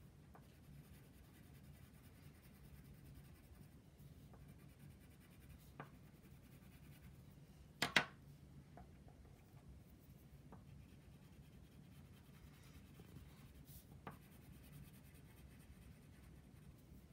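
Faint scratching of a wax crayon colouring on paper on a wooden tabletop. About eight seconds in there is a sharp click, the loudest sound, as the crayons beside the sheet are handled, with a few smaller clicks elsewhere.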